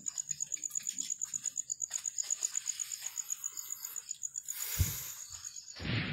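A cricket chirping: a high, even pulsing trill of about eight pulses a second, which stops about four and a half seconds in. After it come a dull thump and a short rustling burst near the end.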